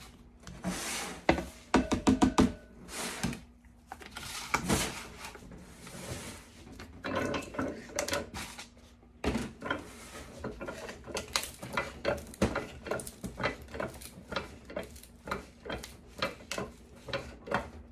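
A silicone tablet mold is knocked and shaken against a plastic tub, then a metal hand-lever arbor press is worked to pack soap powder into the mold. The result is a run of irregular clicks, knocks and clacks, loudest in a cluster of knocks a second or two in.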